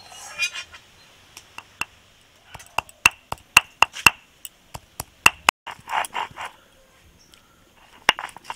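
Peeled ginger being pounded on a stone grinding slab (shil) with a stone pestle (nora): a series of sharp stone-on-stone knocks, several coming quickly one after another. A couple of short barks about six seconds in.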